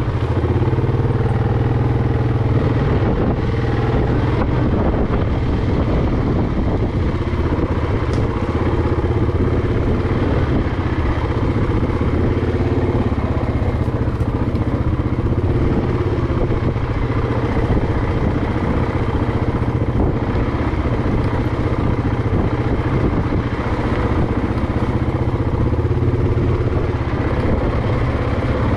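A vehicle engine running steadily at low trail speed, with small irregular knocks and rattles from driving over rough dirt track.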